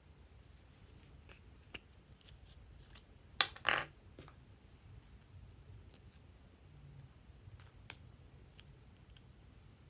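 Small plastic cosmetic pots handled and their caps pulled off: light plastic clicks and scrapes, with a louder pair of clicks about three and a half seconds in.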